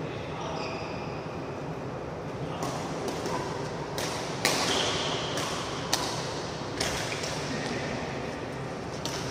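Badminton rackets striking a shuttlecock in a doubles rally: a string of sharp, crisp hits about half a second to a second apart, the loudest about four and a half seconds in, ringing in a large hall.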